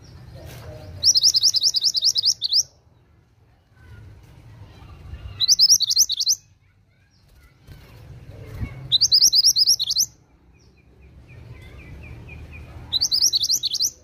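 Caged mantenan (kuniran) songbird singing four loud, high trilled phrases, each a rapid run of quick down-slurred notes lasting about a second, a few seconds apart, with a softer, lower twitter just before the last phrase.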